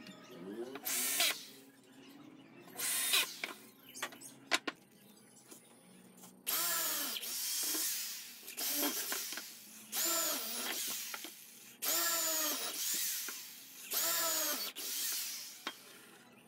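Corded electric drill run in short trigger bursts into the wooden slats of a child's swing seat: a couple of brief bursts early, then a series of roughly one-second bursts from about six seconds in. The motor's pitch falls away as each burst ends.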